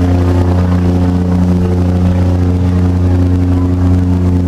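Boat engine running steadily at a constant speed: a loud, even low drone.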